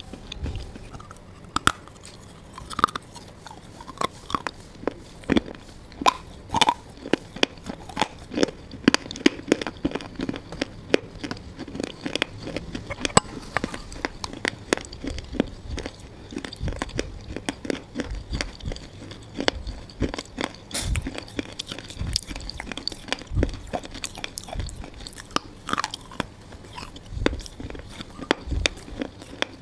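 Close-up biting and chewing of brittle mineral pieces: dense crisp crunches and crackles, several a second, running without pause.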